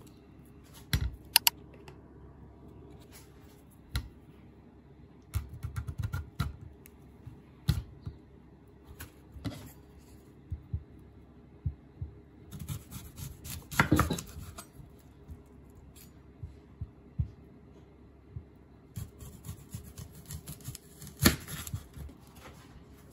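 Objects being handled: irregular clicks, taps and light knocks, with a busier stretch in the middle and one louder knock near the end.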